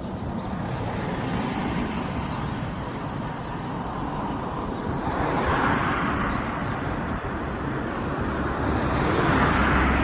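Road traffic: vehicles passing on a road, a steady rush of noise that swells about halfway through and again near the end.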